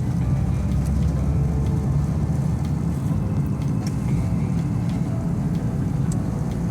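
Steady road and engine rumble of a Fiat Ducato motorhome van driving along, heard from inside the cab, with a few faint ticks.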